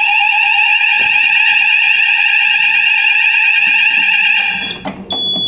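Electronic fire alarm sounders giving a loud, steady tone, set off from a manual call point during a routine fire alarm test. The tone cuts off about four and a half seconds in as the system is silenced, followed by a couple of clicks and a short high beep.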